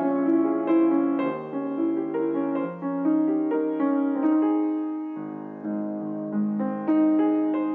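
Background piano music: a slow, gentle piece of sustained chords and melody notes.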